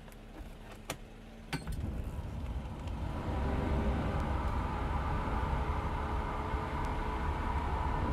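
Gas-powered leaf blower running steadily, muffled through a bus door, fading in over the first few seconds after a few light clicks. It is blowing along the door seam to track down an air leak that makes the door whistle.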